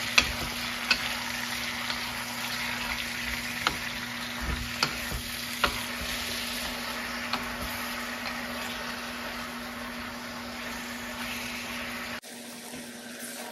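Sliced zucchini frying in olive oil in a pan: an even sizzle, with a wooden spoon knocking against the pan a few times as the slices are stirred and tossed. The sizzle cuts off suddenly near the end.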